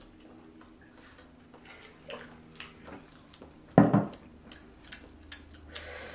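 Close-miked eating sounds: soft chewing, wet mouth noises and small clicks while seafood is eaten, with one louder, short thump about four seconds in.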